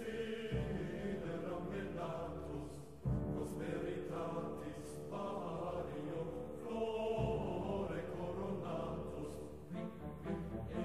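Background music with chanting voices over a sustained low drone; the low part shifts sharply about half a second, three seconds and seven seconds in.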